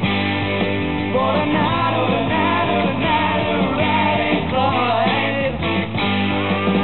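Rock band playing live: drum kit, bass guitar, electric guitars and keyboards, with a wavering melody line above a steady bass line.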